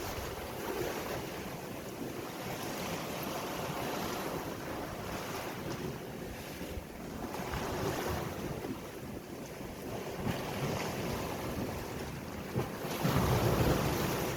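Sea waves washing and surging, swelling and ebbing every few seconds, with wind buffeting the microphone. The biggest surge comes near the end.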